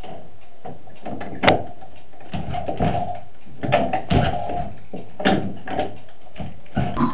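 A sharp click about a second and a half in, then a run of irregular knocks and thuds.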